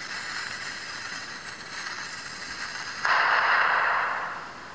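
Explosion sound effect: a sudden loud rushing noise about three seconds in, held for about a second and then fading, over a steady hiss.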